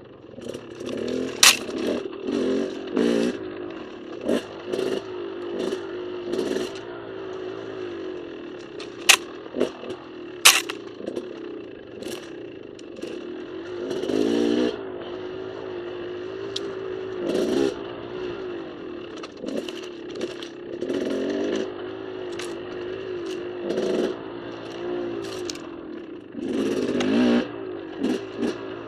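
KTM dirt bike engine running along a rough trail, its pitch rising and falling in short throttle surges. Several sharp clacks ring out above it, the loudest about a second and a half in and around nine to ten seconds in.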